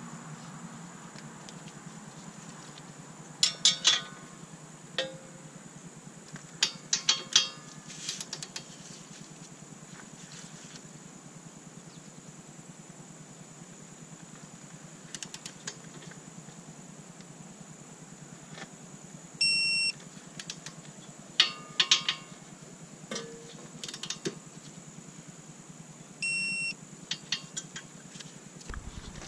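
Metallic ratchet clicks in short runs as a torque wrench is worked on the front strut-to-knuckle bolts. Two short electronic beeps, several seconds apart, are a digital torque wrench signalling that the set torque has been reached.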